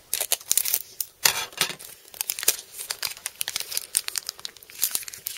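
Foil Pokémon booster-pack wrapper crinkling and being torn open by hand: a run of irregular crackles.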